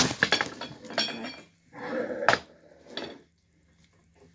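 Metal chair-leg tubes clinking and knocking against each other as they are handled and pushed together, with several sharp knocks spread through the moment.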